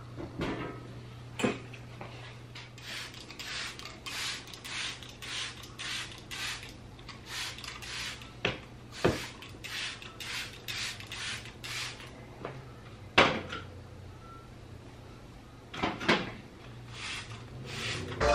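Hand cleaning of a kitchen surface: a run of quick swishing strokes, about two a second, then a few sharp knocks, over a steady low hum.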